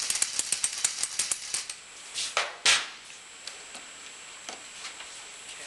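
Rapid clicking from a hand ratchet, about seven clicks a second, for the first second and a half. Then come two metallic clunks close together as the crankcase splitter tool is set on the engine case, followed by a few faint ticks.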